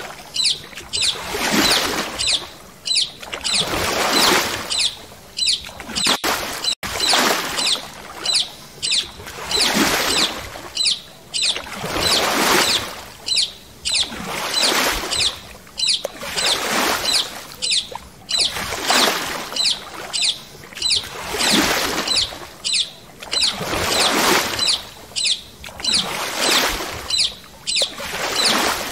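Paddle strokes from a stand-up paddle board: a splashing swish of the blade through the water about every second and a quarter, in a steady rhythm.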